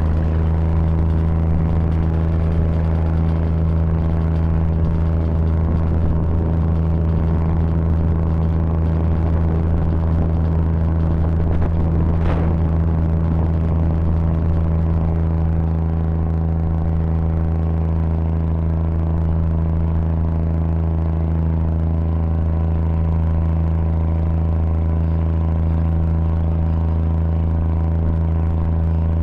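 A car ferry's engine running steadily at cruising speed, a loud, even low drone heard from the deck.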